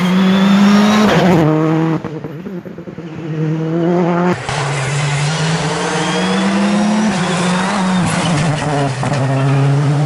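Rally car engines at full throttle through tarmac corners; the car passing in the second half is a Citroën C3 Rally2. The engine note climbs steadily and drops sharply at each gear change, about a second in and again about seven seconds in.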